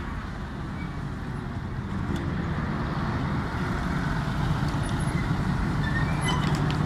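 Steady low rumble of a large engine running, getting gradually louder.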